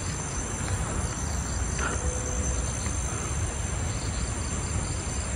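Steady night chorus of crickets and other insects chirring, with a faint short sound about two seconds in.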